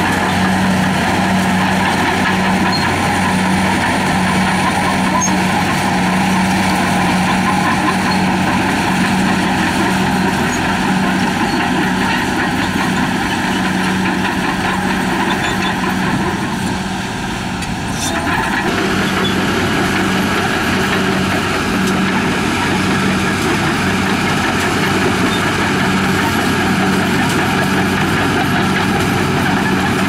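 HBXG crawler bulldozer's diesel engine running steadily under load as the blade pushes soil, with a low, pulsing engine note. It dips briefly a little past halfway, and the sound changes abruptly about 18 seconds in.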